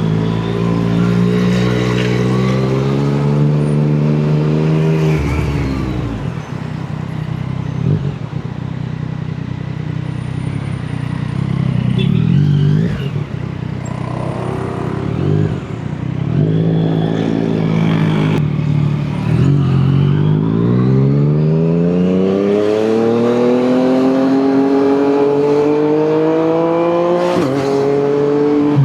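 Yamaha MT-09's inline-three engine through an Akrapovic exhaust, under way and accelerating. Its pitch climbs steadily for several seconds and then drops sharply, as at a gear change, early on and again in the second half, with a rougher, uneven stretch of lower revs in between.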